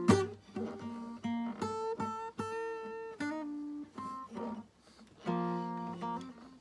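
Steel-string acoustic guitar being played: a sharp strummed chord right at the start, then single notes and chords ringing out one after another, with a short lull before another chord rings.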